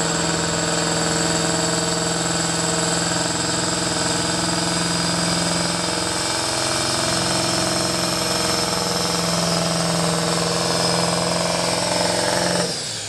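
A pulling truck's engine running hard under load, holding one steady pitch, then dropping away suddenly near the end.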